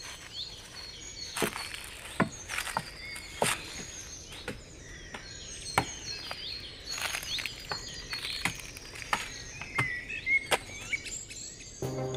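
Sharp, irregular knocks of an axe striking wood, about one a second, with birds chirping and insects in the background.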